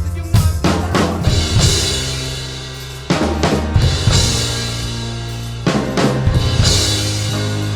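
Drum kit played along with a rock recording: bass drum and snare, with loud accented hits about every two and a half seconds, each followed by a ringing cymbal wash, over sustained low chords.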